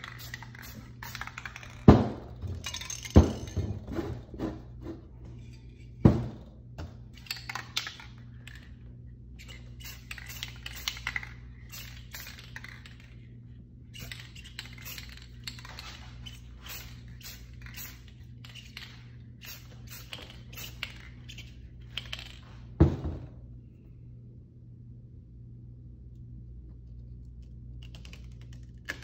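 Aerosol spray paint cans in use: short hissing sprays with rapid clicking and clattering of the cans, and four sharp knocks, three in the first six seconds and one later on. The second half is quieter, with scattered clicks over a steady low hum.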